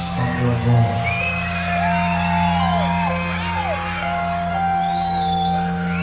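Concert crowd whistling and whooping in a hall over a sustained keyboard chord from the band. The whistles rise and fall, scattered all through.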